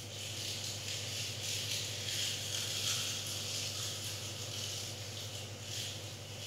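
Steady hiss with a low hum beneath it, a little louder around the middle, and no distinct event.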